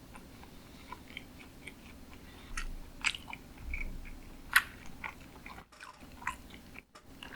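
Close-miked chewing of sushi: wet mouth smacks and irregular small clicks, a few louder ones about three and four and a half seconds in.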